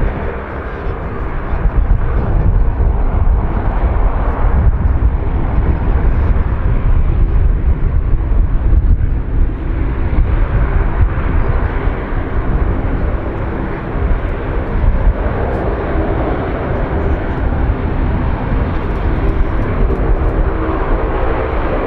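Lockheed C-130H Hercules with its four Allison T56 turboprops running at taxi power: a steady propeller drone made of several humming tones over a heavy low rumble. The humming tones grow stronger near the end.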